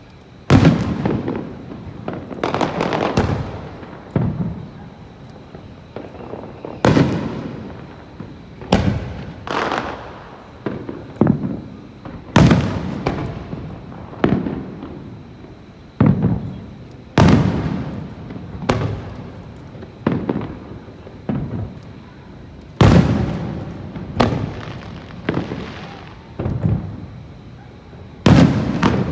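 Aerial firework shells bursting overhead: a long string of sharp booms at uneven gaps of one to two seconds, each one fading away over about a second.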